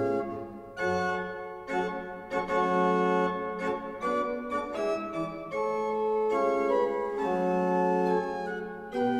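Organ playing slow, sustained chords that change about once a second.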